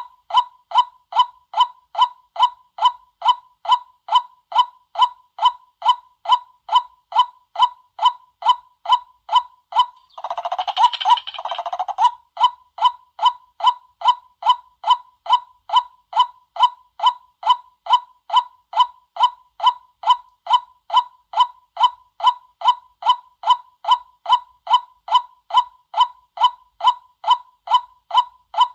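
White-breasted waterhen call used as a lure, one short note repeated steadily about twice a second, with a brief burst of denser, harsher calling about ten seconds in.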